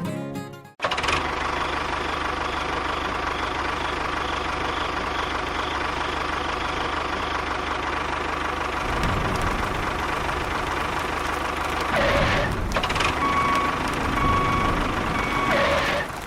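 A small motor or engine running steadily with a faint whine. Its sound grows heavier about nine seconds in, and it gets louder briefly about twelve seconds in and again near the end.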